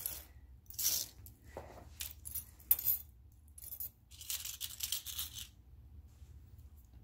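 Loose metal costume jewelry clinking and jingling as a hand pushes and sorts a pile of it on a marble countertop: a few short clinks in the first three seconds, a longer jingle about four to five seconds in, then quieter.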